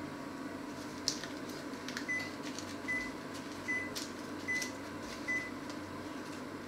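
An electronic kitchen appliance gives five short, high beeps, evenly spaced a little under a second apart, over a steady low hum. A few sharp clicks come through, the first about a second in.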